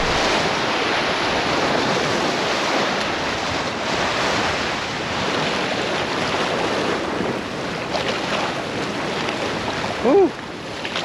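Small sea waves washing and splashing over shoreline rocks close by, a steady rush of surf. About ten seconds in, a short rising-and-falling squeak.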